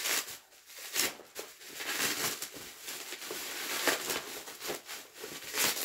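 A small box being opened by hand: packaging rustling, with scattered light clicks and scrapes.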